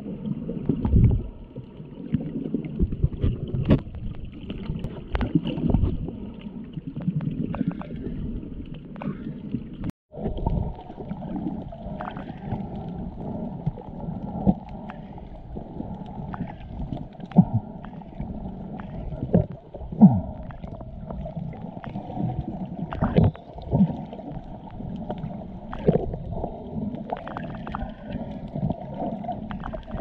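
Muffled underwater sound picked up by a submerged camera: water sloshing and swishing, with irregular dull knocks and bumps. There is a brief dropout about ten seconds in.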